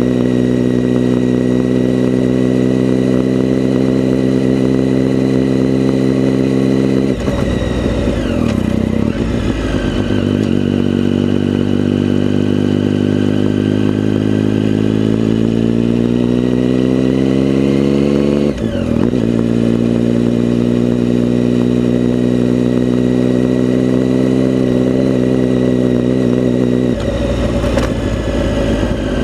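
Motorcycle engine running under way, recorded onboard. It holds steady revs, drops sharply in pitch about seven seconds in, then climbs steadily through a gear before a quick dip at a gear change about two-thirds of the way through. After that it holds steady again, with another change in tone near the end.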